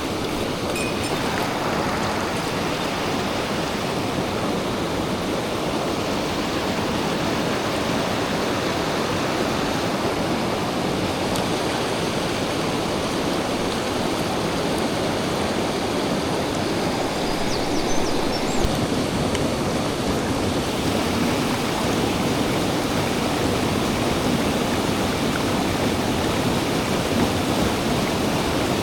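Mountain stream rushing, a steady, fairly loud wash of flowing water.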